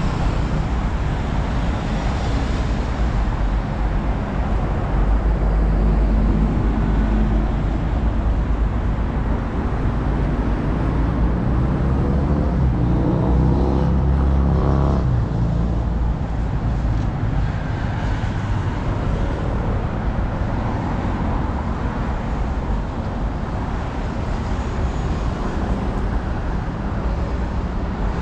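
Steady city road traffic: cars and buses running past on the street. About halfway through, one vehicle's engine rises in pitch as it accelerates.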